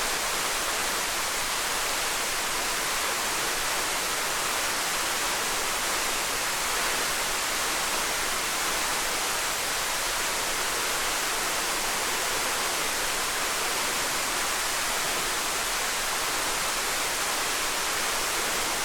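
Small waterfall: water falling in a steady, even hiss-like rush, strongest in the upper range with little low rumble.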